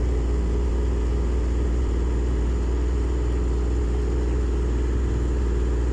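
Sightseeing boat's engine running steadily at cruising speed, a constant low hum.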